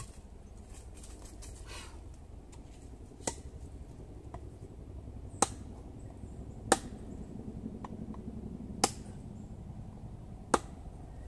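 Wood being chopped and split on a stump chopping block: five sharp, separate knocks, the first about three seconds in, then one every one and a half to two seconds.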